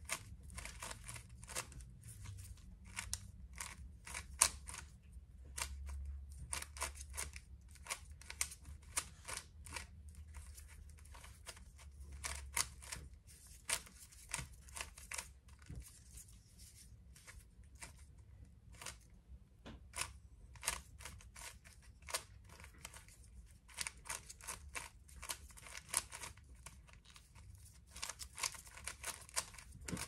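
Rubik's cube being turned by hand: fast runs of dry plastic clicks as the layers snap round, in bursts broken by short pauses.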